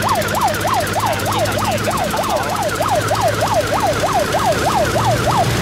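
Electronic siren sounding a fast yelp, its pitch sweeping up and down about three to four times a second and stopping shortly before the end, over the steady low drone of boat engines running.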